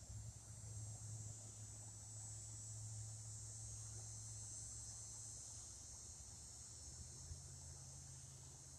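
Faint, steady high-pitched chirring of insects, with a low hum beneath it that steps up in pitch about seven seconds in.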